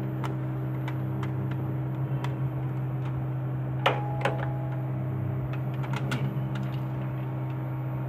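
Metallic clicks and clacks from hands handling the sprockets and rollers of an old cinema film projector, the loudest two about four seconds in, over a steady low hum.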